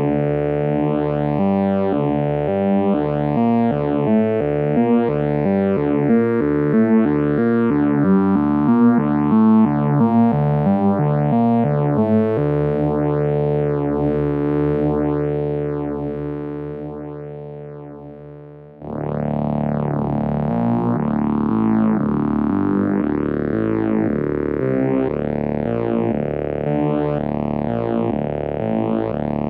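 Arturia Solina V software string-machine synth played from a keyboard, a pattern of notes with a phaser sweeping up and down through the tone. About twelve seconds in a held note dies slowly away, and the playing starts again a few seconds later.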